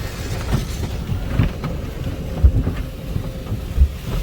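Car wash tunnel machinery heard from inside a car: a steady low rumble with a few dull thumps, the loudest about two and a half seconds in and again near the end.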